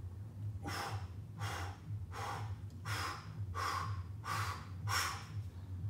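A man breathing hard and fast through his mouth while holding a deep squat with a kettlebell at his chest: about seven short, sharp breaths, one roughly every 0.7 seconds, starting under a second in. A steady low hum sits underneath.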